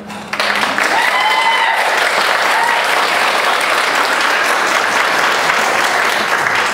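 Audience applauding, breaking out suddenly and then holding steady, with a high voice whooping briefly about a second in.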